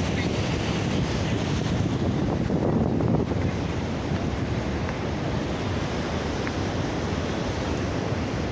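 Waterfall roaring steadily, the low rush of falling water mixed with wind buffeting the phone's microphone.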